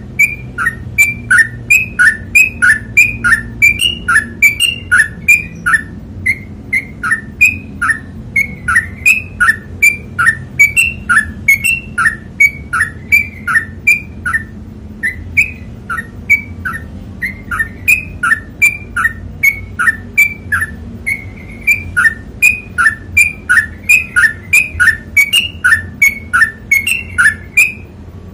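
Yellow-vented bulbul (trucukan) singing a long, rapid 'ropel' run: short two-part whistled notes repeated about three times a second without a break.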